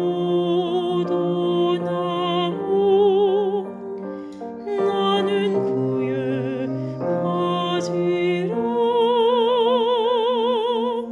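Choir practice track of a four-part anthem, with the bass part the one being practised. Sustained chords with vibrato change every second or two, ending on a long held chord.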